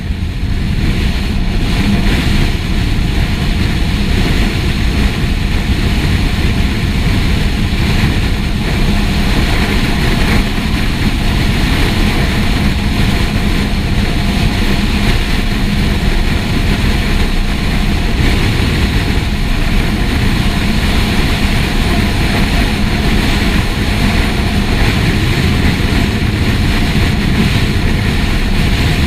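Fire engine (TLF 16/24 tanker) under way, its diesel engine and road noise making a steady, even drone.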